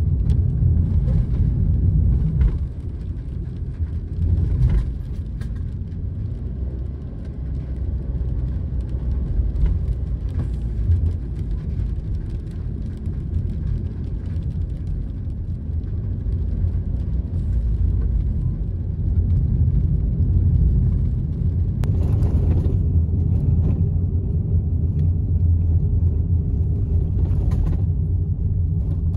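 Steady road noise inside the cabin of a Honda N-VAN kei van driving on a wet road: a low engine and drivetrain rumble with tyre hiss over it, and a few brief louder swells.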